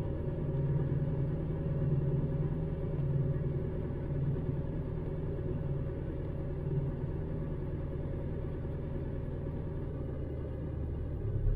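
Mitsubishi 4M41 3.2-litre four-cylinder turbo-diesel idling steadily at a raised speed of about 1,150 rpm while its ECU runs small injection quantity learning, heard from inside the cab as a low rumble. Near the end a deeper rumble swells and the sound grows louder.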